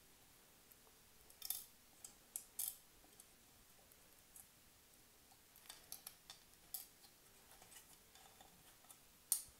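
Light, scattered clicks and clinks of small metal parts and an aluminium chassis plate being handled during RC truck assembly, with a few about two seconds in, a quick cluster around six seconds in, and the sharpest click near the end.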